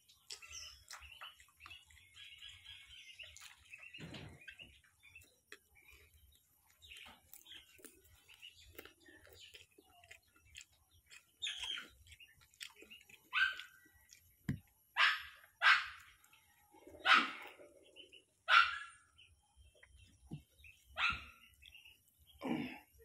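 A dog barking in a string of about seven short barks, roughly a second apart, in the second half. Birds chirp faintly, with small clicks of eating, before the barking starts.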